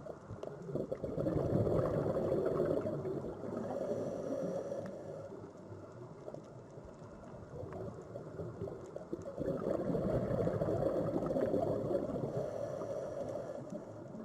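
Sea waves surging and washing in, two swells, one soon after the start and one past the middle, each easing off over a few seconds.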